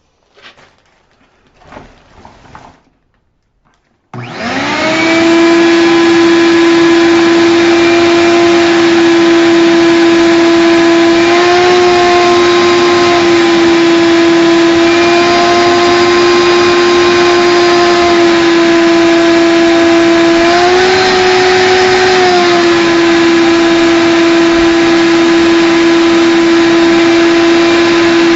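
Shop vac switched on about four seconds in, its motor spinning up to a loud, steady whine; twice the pitch rises briefly, as the motor speeds up when the hose's airflow is choked off.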